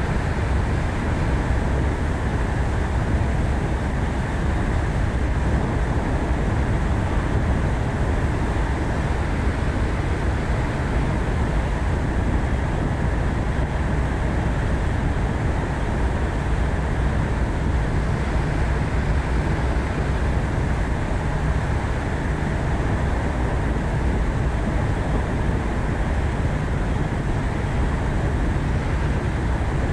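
Ford Focus ST being driven: steady engine and road noise with a heavy low rumble.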